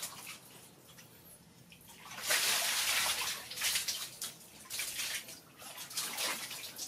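Water from a garden hose pouring into a plastic bucket while a baby monkey splashes in it; the splashing turns loud about two seconds in and goes on in repeated bursts.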